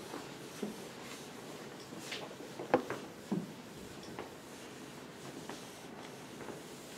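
Quiet room with a few scattered small knocks and clicks; the sharpest click comes a little under three seconds in, with a softer knock just after.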